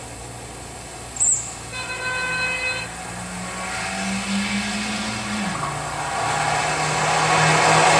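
A brief sharp high squeak about a second in, then a car horn toot lasting about a second. A Fiat X1/9's engine runs with its pitch rising, then dropping suddenly about five and a half seconds in, and it grows louder as the car approaches.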